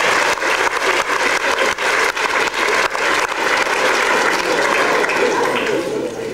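Audience applauding: dense, irregular clapping that dies away near the end.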